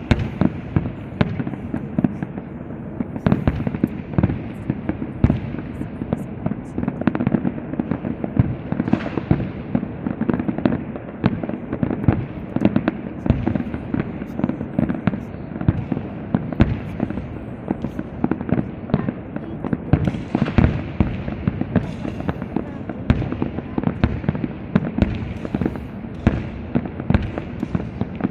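Castillo aerial fireworks display: a dense, unbroken barrage of shell bursts and crackling bangs, several a second, over a steady rumble.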